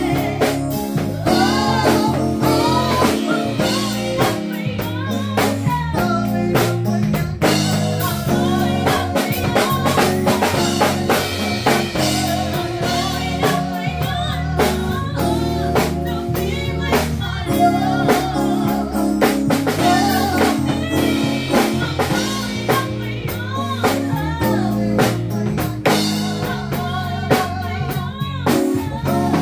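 Live band playing: two women singing into microphones over a drum kit and keyboard, with a steady drum beat throughout.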